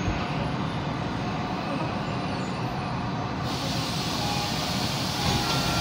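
Tokyo Metro Ginza Line 1000-series subway car's low running rumble as the train rolls slowly to a stop. About three and a half seconds in, a steady hiss of air starts suddenly.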